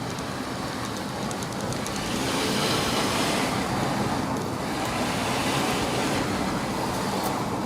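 2008 Honda CR-V on the move, steady engine and road noise with two rough, grinding swells from the rear brakes: worn rear brake pads grinding metal to metal against the rotor.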